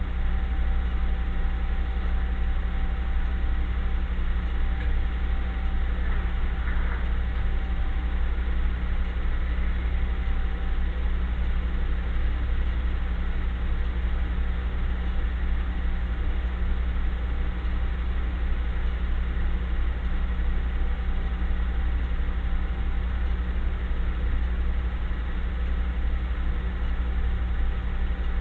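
A steady, unbroken low hum with a faint high whine above it, keeping the same level throughout.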